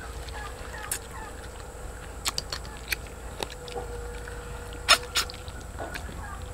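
Close-up eating sounds: scattered sharp smacks and clicks of chewing and of fingers tearing crispy fried chicken, with a faint steady hum underneath.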